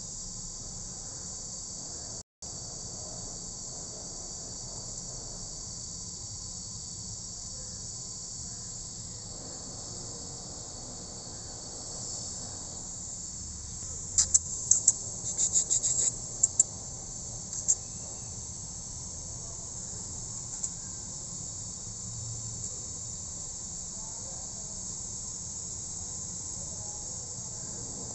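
Steady high-pitched chorus of insects chirping, with a quick burst of sharp, louder clicks from about 14 to 18 seconds in. The sound cuts out for an instant about two seconds in.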